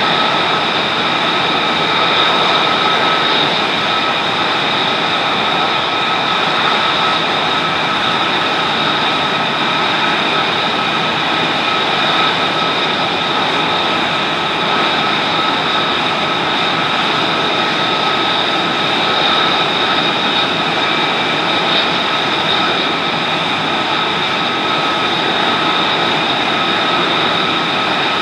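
F-35 Lightning II's F135 turbofan idling, left running while the jet is refueled in a hot pit: a steady, loud rush with an even high-pitched whine over it.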